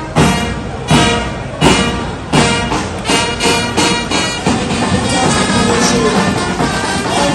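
Music led by brass instruments, with strong regular beats about three quarters of a second apart over the first few seconds, then a fuller continuous passage.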